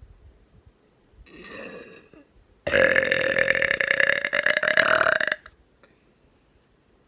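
A person burping up close to the microphone. A brief, quieter sound comes about a second in, then one long, loud, steady-pitched burp lasting nearly three seconds that cuts off suddenly.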